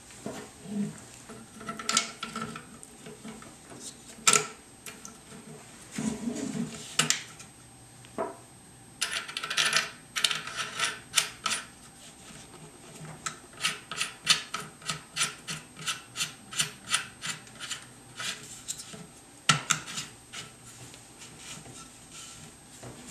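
Gun stock parts being handled and fitted together: scattered knocks, a stretch of scraping a third of the way in, then a run of regular clicks, about two to three a second.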